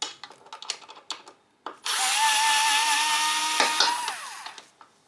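A few light clicks and taps, then an electric screwdriver runs for about two and a half seconds, backing out a hex screw that holds the scooter's battery pack. Its whine drops in pitch as it stops.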